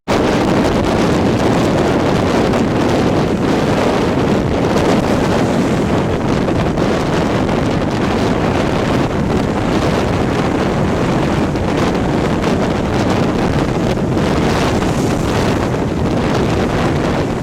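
Strong tropical-storm wind buffeting the microphone: a loud, steady rush of wind noise.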